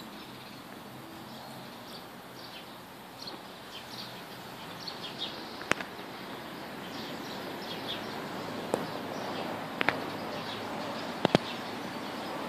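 Birds chirping in short, high calls scattered throughout, over a steady outdoor background hiss. A few sharp clicks stand out, including a quick double click near the end.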